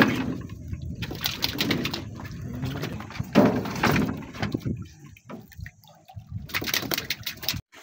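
Water sloshing and lapping against the hull of a small wooden outrigger boat, in irregular splashes.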